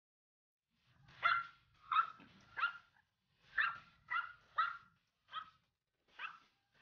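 A Pomeranian puppy barking: about nine short, high-pitched yaps in uneven bursts, starting about a second in and fading toward the end. These are nervous barks at ducks the puppy is afraid of.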